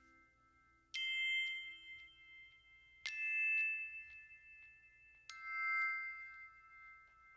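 Three struck bell-like chime notes about two seconds apart, each at a different pitch and ringing on as it slowly fades.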